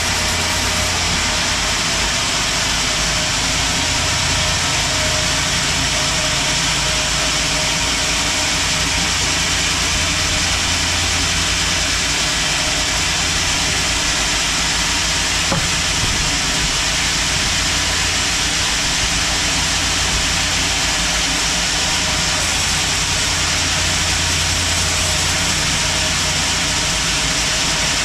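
Sawmill machinery running steadily: a continuous loud hiss over a low rumble, unchanging throughout.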